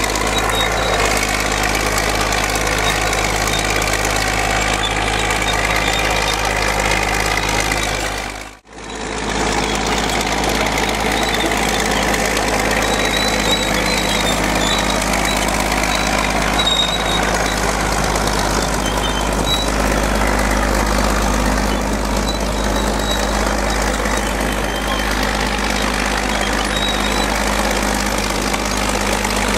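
Bulldozer's diesel engine running steadily, with a brief dropout about eight seconds in.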